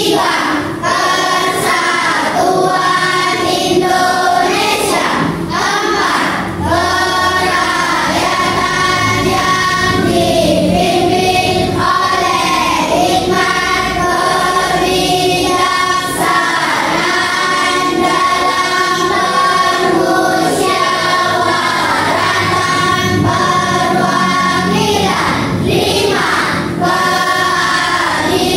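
A class of schoolchildren singing a national song together in unison, with long held notes.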